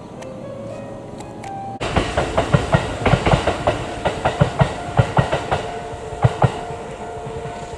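Faint music at first, then an electric express train (a Kintetsu Ise-Shima Liner) passing: its wheels clack in quick pairs over the rail joints for about four and a half seconds, over a steady running hum that goes on after the clacking stops.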